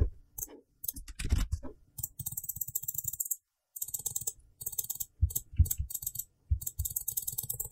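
Rapid clicking from a computer mouse and keyboard, in short bursts with a brief pause a little over three seconds in.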